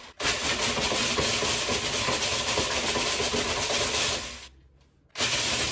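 Food processor pulsing, its blade grinding Oreo cookies into crumbs: one run of about four seconds, a brief stop, then it starts again about five seconds in.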